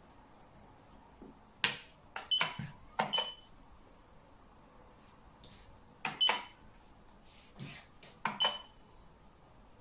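Xiangqi pieces being clacked down onto the board as moves are played: sharp clicks in about five short clusters, some with a brief ringing tone after them.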